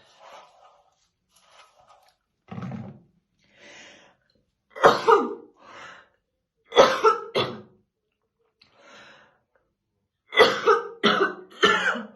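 A woman coughing in fits, deep and chesty, which the uploader presents as a smoker's morning cough: a softer low cough, then two pairs of harsh coughs a couple of seconds apart, and a quick run of three or four coughs near the end.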